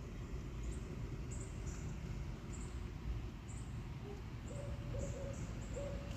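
Steady low outdoor rumble. From about four and a half seconds in, a bird's low hooting call repeats: several short notes at one pitch, a few to the second, like a dove's cooing.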